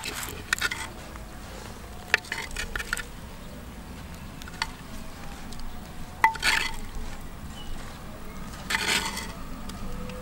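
Metal spoon scraping and knocking inside a terracotta clay pot as cooked food is scooped out: four short scrapes a couple of seconds apart, with a few sharp clicks.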